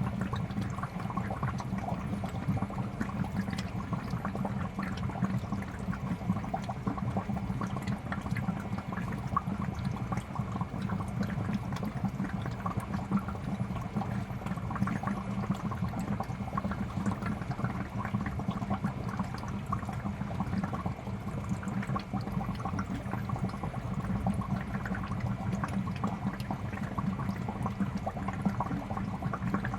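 Aquarium air bubbles rising and popping in a fish tank: a steady, continuous bubbling and gurgling of water, with many small pops.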